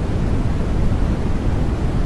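Steady baby-sleep white noise, deep and rumbling, with most of its weight low down and only a little hiss above.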